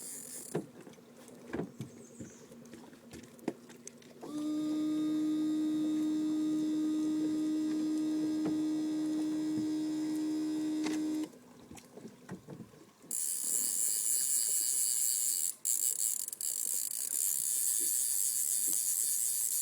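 A small electric motor on a fishing boat running: a steady hum for about seven seconds that stops suddenly, then, a couple of seconds later, a higher-pitched whine that carries on.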